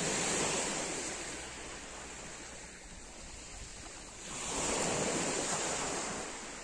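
Small sea waves breaking and washing up a pebble beach, swelling twice a few seconds apart.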